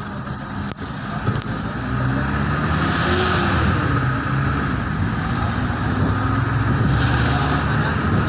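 Engine and road noise of a moving car heard from inside, growing louder about two seconds in, with a short knock about a second in.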